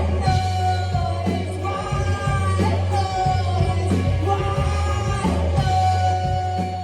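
Live rock band playing: a singer holds long notes that glide slightly down, over a steady deep bass and regular drum hits.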